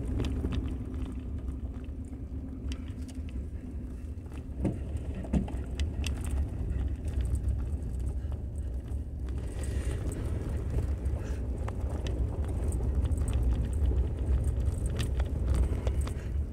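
Steady road and engine rumble inside the cabin of a moving car, with a few light clicks and rattles over it.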